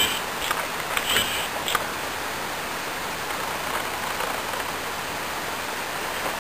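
Steady rush of creek water flowing, with a few sharp clicks in the first two seconds.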